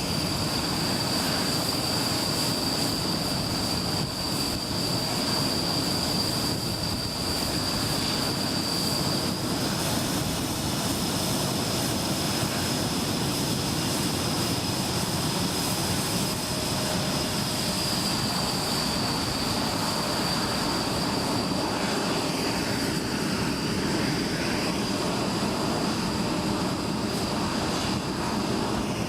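Panavia Tornado GR4 jets' RB199 turbofan engines running steadily on the ground, with a steady high whine that shifts slightly in pitch twice.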